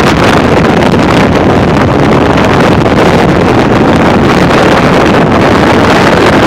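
Strong wind gusts blasting across the microphone: a loud, steady rush of wind noise with no let-up.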